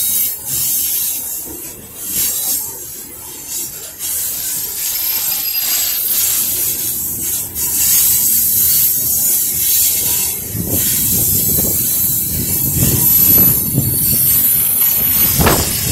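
Loaded coal cars of a slow freight train rolling past, steel wheels on the rails giving a steady high hiss with thin squeals. A low rumble and clatter of the wheels grows louder in the last third.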